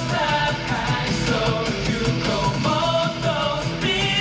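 Live K-pop concert music heard through an arena's sound system and recorded from the audience: male voices singing a melody over a loud band backing track.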